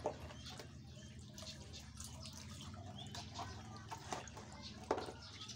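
Light splashing and dripping of water as a plastic dustpan is worked through the shallow water of a drained fish tank to scoop out tilapia, with two sharper splashes, one just after the start and one about five seconds in.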